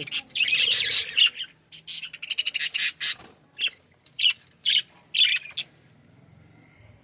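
A flock of budgerigars chirping and squawking: a dense burst of overlapping chirps at first, then separate shorter calls, dying away near the end.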